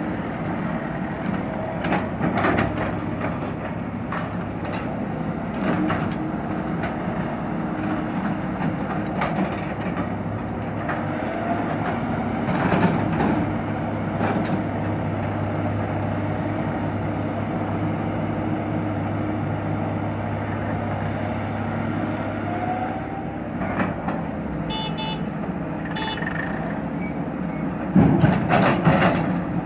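Kato HD700VII excavator's diesel engine and a dump truck's engine running steadily under load, with a rising hydraulic whine as the boom swings and occasional clanks of the bucket. A few short horn toots sound about two-thirds through, and near the end a loud rattle of soil and clods dropped from the bucket into the steel tipper body.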